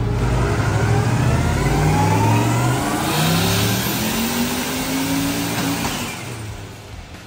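Single-turbo LS V8 in a Nissan 370Z drift car making a full-throttle pull on a chassis dyno, its pitch climbing steadily for about six seconds before it falls away near the end.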